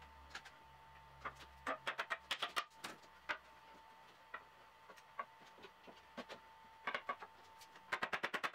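Light knocks and clacks of beech bed parts, rails and a post, being handled and fitted together in a dry fit. Near the end comes a quick, even run of about ten taps a second.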